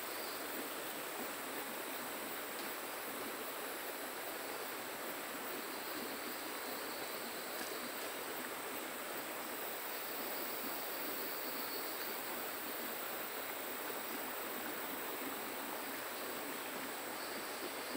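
Steady rushing of flowing river water, an even hiss with no sudden events.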